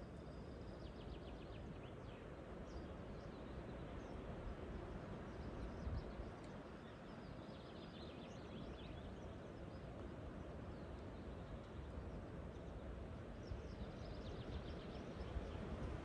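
Small songbirds calling in short, rapid high trills, about three runs a few seconds apart, over a steady low rumble of outdoor background noise.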